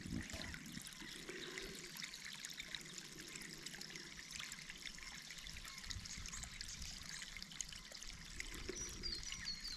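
Faint, steady trickling of water from a poly-pipe siphon outlet emptying into a dam.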